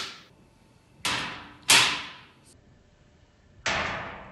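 A bottle opener slammed down on a tabletop three times: three sharp knocks, each dying away with a short ringing tail.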